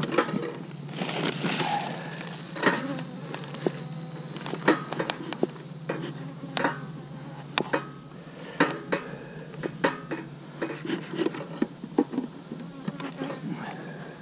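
Honeybees buzzing in a steady low hum around an open hive, with irregular sharp clicks and knocks of hive equipment being handled.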